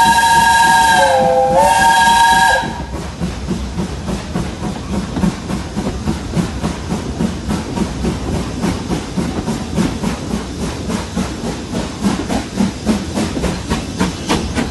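Steam locomotive whistle blown for about two and a half seconds: a loud chord of several tones that dips in pitch briefly before cutting off. After it comes the steady rhythmic beat and rumble of the train running along the track.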